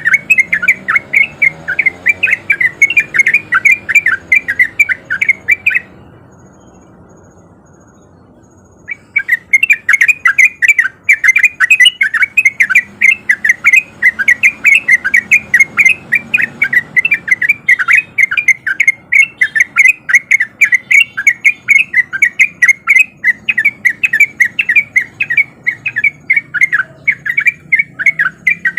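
Sooty-headed bulbul (trucuk) singing a fast, unbroken run of short chirping notes, about five a second, with a break of about three seconds a quarter of the way in.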